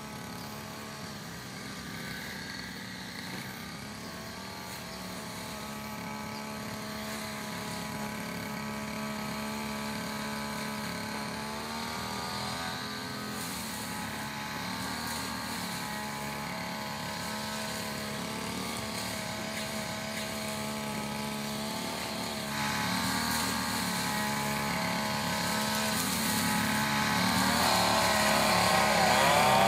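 An engine running with a steady hum; its pitch rises about twelve seconds in, and it gets gradually louder, with the pitch wavering near the end.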